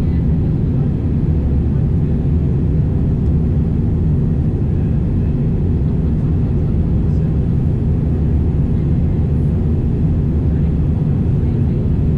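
Steady low rumble of a jet airliner's engines and airflow heard inside the passenger cabin, shortly after takeoff with the seatbelt signs still on.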